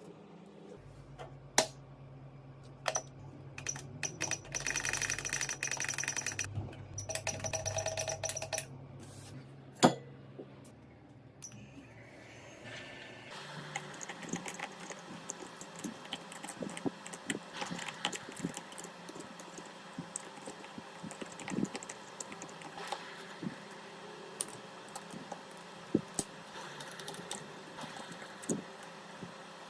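Small hand tools clicking, tapping and scraping on a phone during a back-glass repair. A few seconds in, a steady mechanical hum with several fixed pitches runs in two stretches of about two seconds each. After that comes a long run of dense small clicks and scrapes.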